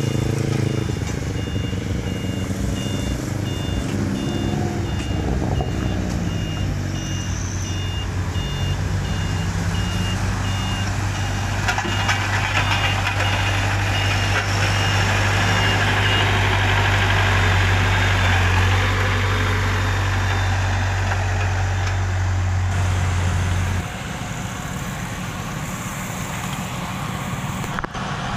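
Tandem road roller's engine running steadily while it rolls fresh asphalt on a pothole patch, its reversing alarm beeping evenly through the first half. About four-fifths of the way through the sound drops in level and changes to another roller's engine.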